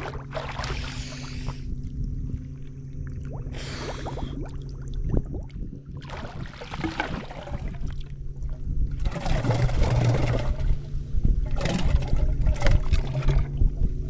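Small boat engine idling steadily, with repeated bursts of water splashing and pouring over it that grow louder toward the end.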